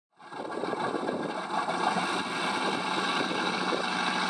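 Benedini sound module in an RC scale Stinson Reliant SR-9 model playing a simulated radial engine idling through the model's onboard speaker. It comes in sharply about a quarter-second in and runs steadily, growing slightly louder.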